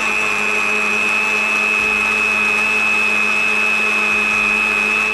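Electric countertop blender running steadily at full speed, puréeing watermelon chunks with yogurt into a lassi. It gives a constant high whine over a dense churning rush.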